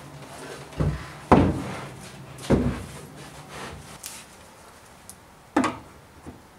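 Wooden workbench drawer and its runners being handled: a few sharp wooden knocks, the loudest about a second in and one more near the end, with rubbing of wood in between.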